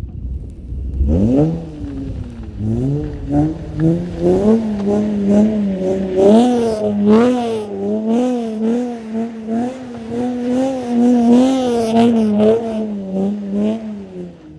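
Car engine revving up about a second in, then held at high revs with its pitch repeatedly rising and falling a little.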